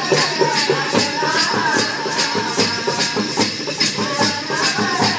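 Live folk music: a wavering melody over a steady quick beat of jingling, shaking percussion, about three or four strokes a second.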